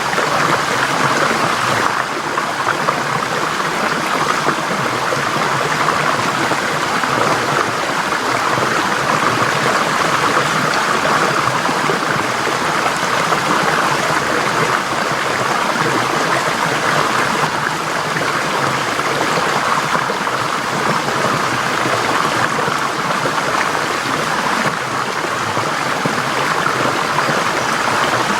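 Forest stream flowing over rocks: a steady, even rush of water with a light gurgle.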